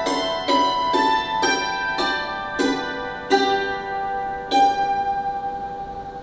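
Hammered dulcimer playing the closing bars of a waltz: notes struck about twice a second, then slowing to two last notes that ring on and fade away.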